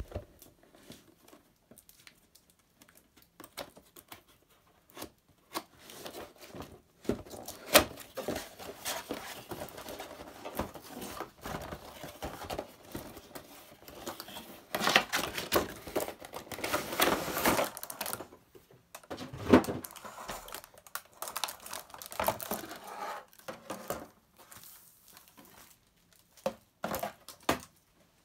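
A cardboard and plastic model-car box being handled and opened: flaps pulled open, plastic packaging crinkling and rustling, with scattered clicks and knocks. The handling is sparse at first and busiest in the middle.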